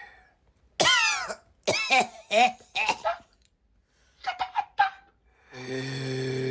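A sleeping person's snoring noises: a run of short coughs and snorts with sliding pitch in the first half, a few quick sharp snorts about four seconds in, and a long low snore near the end.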